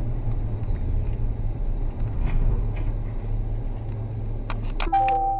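Low, steady rumble of a car's engine and road noise, heard from inside the moving car. Near the end, a few sharp knocks come in quick succession, followed by a brief steady tone.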